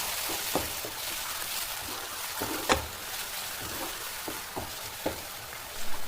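Onion and ground-tomato masala frying in coconut oil in a pan, sizzling steadily while a spoon stirs it, knocking and scraping against the pan a few times. The sizzle jumps up sharply right at the start.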